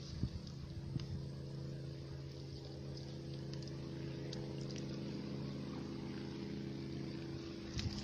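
An engine running steadily, a low drone with an even pitch, with a few light knocks in the first second and again near the end.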